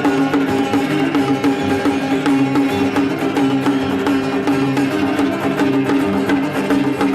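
Instrumental music: plucked strings and quick percussion strokes over steady held notes.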